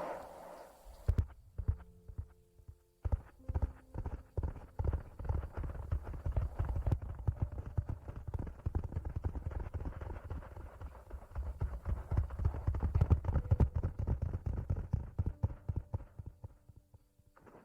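ASMR hand sounds: a fast, dense run of soft, low taps and thuds, like fingers tapping and rubbing. It starts about a second in, eases briefly near three seconds, and stops just before the end.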